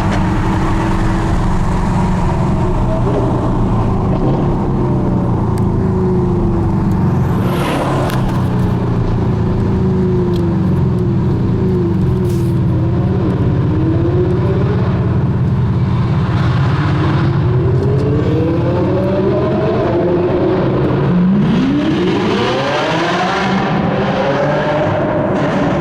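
Sports car engines driven hard: revs rise and fall over and over through acceleration and lift-off, over a steady heavy road and engine drone, with a steep climb in revs near the end. A few sharp pops cut through.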